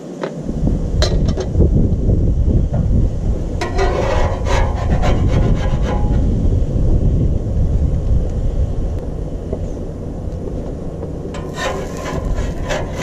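A pepper grinder rasping over the omelette in the first few seconds. Near the end, a metal spatula scrapes under the omelette on the steel griddle top. A loud low rumble runs under both.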